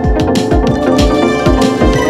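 Electronic music with a steady drum beat under held synth tones.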